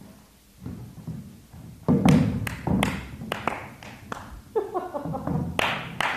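Footsteps in heeled sandals on a stage floor, mixed with knocks and thuds from a chair being carried and set down. A string of sharp knocks starts about two seconds in, the first the loudest, with a second cluster near the end.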